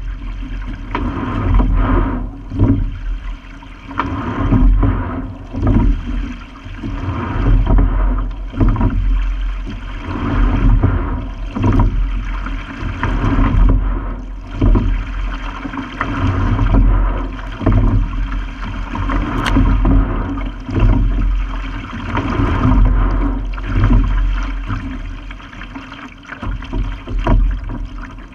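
Rowing shell under way: water rushing and splashing along the hull, swelling with each oar stroke about every two seconds, with short knocks from the oars and rigging.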